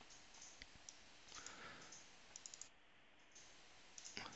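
Near silence: room tone with a few faint, scattered clicks of a computer mouse.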